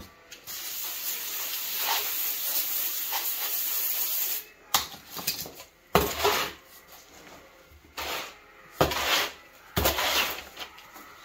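A hand tool scraping and rubbing through wet mortar in a mixing pan: one continuous scrape for about four seconds, then five separate strokes.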